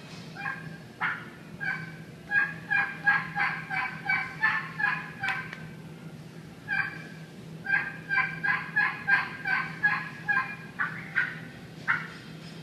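Turkey call imitating a hen turkey yelping: two rhythmic runs of yelps, about three notes a second, with a short pause between them around the middle.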